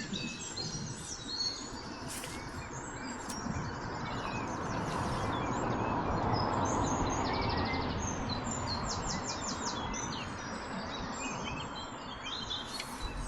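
Small birds chirping and trilling repeatedly over a steady rushing noise that swells for several seconds midway.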